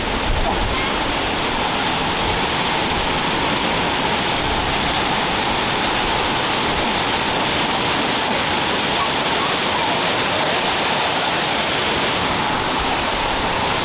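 Sgwd yr Eira waterfall pouring, a steady, even rush of falling water.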